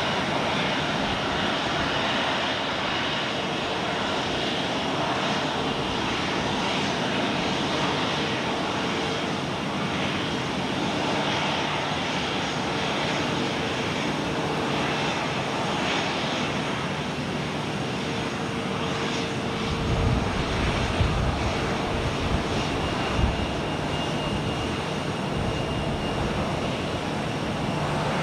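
Jet engines of an Airbus A350-1000 landing, heard as a steady rushing noise with faint steady whining tones. A few low thumps come about two-thirds of the way through.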